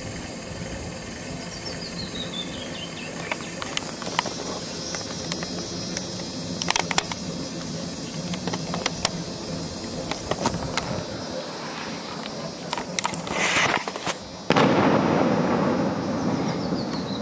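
Camera handling noise: scattered sharp clicks and knocks over a steady outdoor background, with a descending series of high notes near the start. About fourteen seconds in, a louder rush of wind noise on the microphone sets in suddenly.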